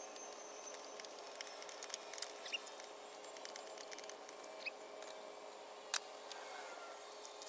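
Scattered light clicks and taps of hand tools and parts being handled during a spark plug change, irregular and spaced out, over a faint steady hum.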